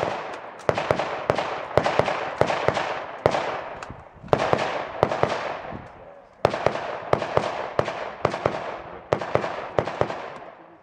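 Rapid semi-automatic rifle fire, about two to three shots a second in several quick strings, with each shot trailing a long fading echo.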